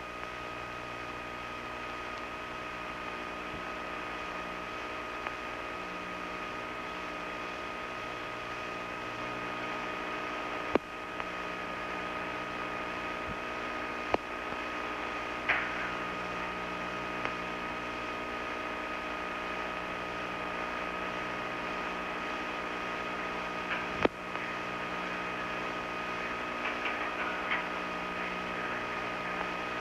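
Steady mechanical hum made of several fixed tones over a hiss, with a few sharp clicks scattered through it.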